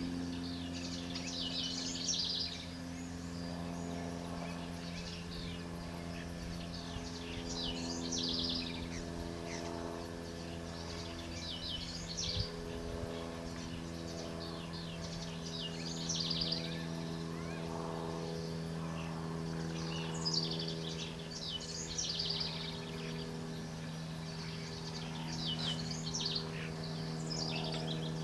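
Small songbirds singing in short chirping, trilled phrases every few seconds, over a steady low mechanical hum.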